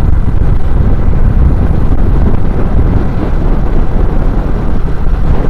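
Wind buffeting a motorcycle helmet microphone while riding, a loud steady rumble with no let-up, heaviest in the low end. It is the wind noise that swamps the rider's voice on this helmet mic.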